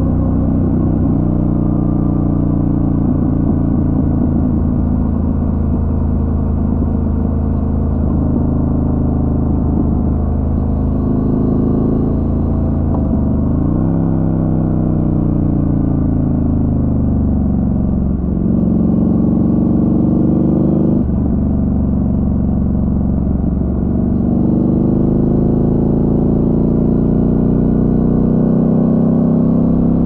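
Motorcycle engine running under way, its note climbing and falling with the throttle, with a couple of sudden breaks in the note a little past the middle.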